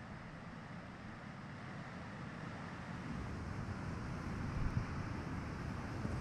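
Wind on the microphone, a steady rushing with a low rumble that grows louder about halfway through, with a stronger gust near the end.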